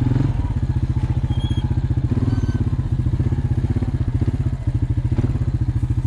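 Quad bike engine running steadily at low speed, with a rapid, even pulsing beat.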